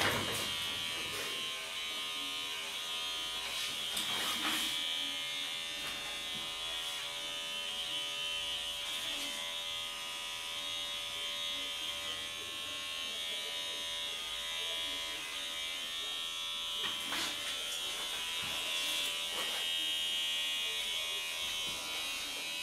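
Electric hair clipper running steadily with a high buzz, with a few brief clicks along the way.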